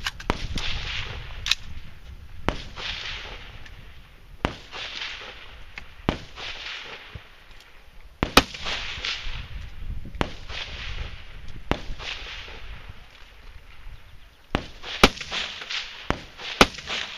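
Scattered gunshots at irregular intervals, about a dozen, each followed by a short trailing echo, with wind rumbling on the microphone.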